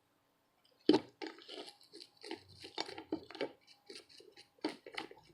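Toothbrush scrubbing a soldered circuit board wet with alcohol, a run of short, irregular scratchy strokes starting about a second in, washing off leftover soldering flux.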